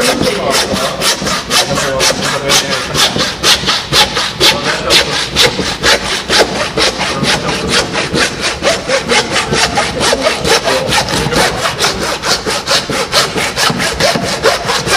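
Hand frame saw cutting through a pig's head, through bone and flesh, in rapid, even back-and-forth strokes at about five strokes a second.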